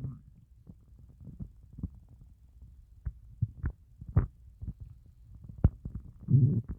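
Empty human stomach gurgling from hunger during a fast of more than a day. Quiet, irregular short pops and bubbling clicks come a few at a time, with the loudest in the middle, and a longer low growl starts just before the end.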